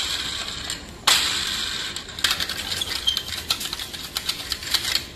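A sharp knock about a second in that fades away, then a quick run of light clicks and rattles, like a small mechanism or an object being shaken.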